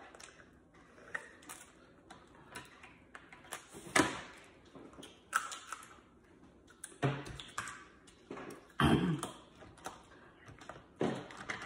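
Snow crab legs being snapped and cracked open by hand: irregular sharp cracks of shell every second or two, with lighter clicks and taps of long acrylic nails on shell in between.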